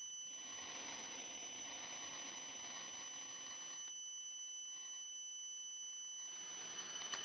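Faint steady hiss with a thin, constant high-pitched whine over it, growing a little fainter about four seconds in.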